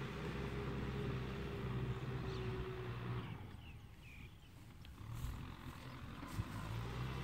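Tractor engine running steadily in the distance, a low hum that fades for a second or two around the middle before coming back. A few short high chirps sound during the quieter stretch.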